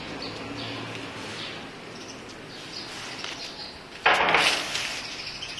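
Birds chirping faintly in the trees over a steady outdoor background hum, with a sudden loud noisy rush about four seconds in that fades over a second or so.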